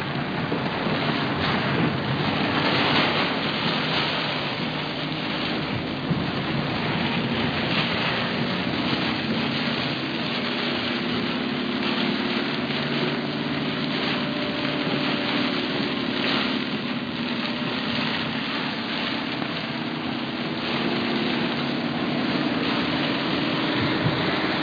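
Heavy rain beating steadily on a car's windshield and roof, heard from inside the moving car, with the low hum of the engine and tyres on the wet road underneath.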